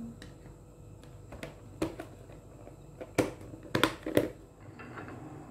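A series of sharp clicks and knocks at irregular intervals, as of hard objects being handled or set down, with the loudest few between about three and four and a half seconds in.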